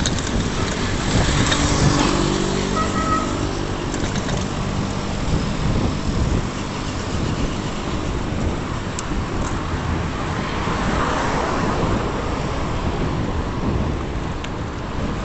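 Road traffic noise heard from a moving bicycle: car engines and tyres on the road, with one vehicle's engine hum standing out during the first few seconds.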